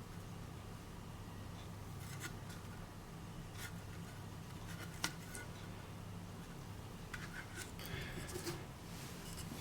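Faint handling noises from the unboxing: scattered rustles, scrapes and light knocks, with one sharp click about five seconds in, over a steady low hum. The grinder is not running.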